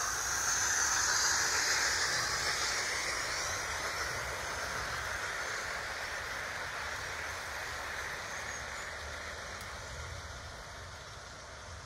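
OO gauge model train running on garden track, a steady hissing running noise of wheels and motor that fades gradually as the rake of coaches draws away.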